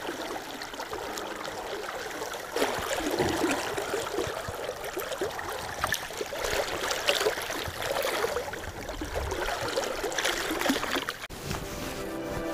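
River water rushing and splashing close by. From a few seconds in, the splashing grows louder and more irregular as a hooked fish thrashes at the surface and is scooped into a landing net. Music comes in near the end.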